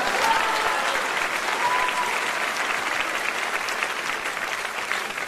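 A crowd clapping and applauding, a steady crackle of many hands that eases slightly toward the end.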